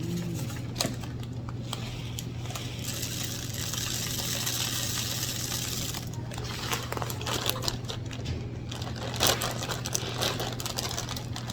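Canary-mix birdseed poured into a plastic-bottle bird feeder: a steady hissing rush of seed for a few seconds, then many scattered clicks and rattles of seed and plastic, over a steady low hum.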